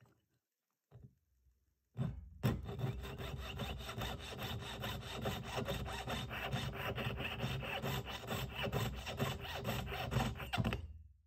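Jeweller's piercing saw cutting at a wooden bench pin with rapid, even back-and-forth strokes. The sawing starts about two seconds in, after a few faint knocks, and stops just before the end.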